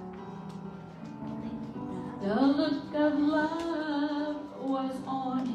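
A woman singing solo into a microphone over instrumental accompaniment. Her voice comes in about two seconds in, sliding up into a long held note with a slight waver, then a shorter phrase near the end.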